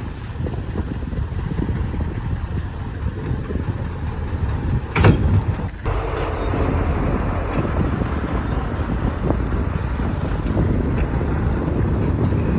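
Heavy diesel engine running steadily with a low rumble, with a short loud burst of noise about five seconds in.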